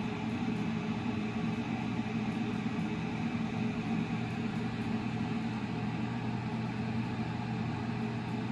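A steady low mechanical hum with an even hiss over it, unchanging in pitch and level.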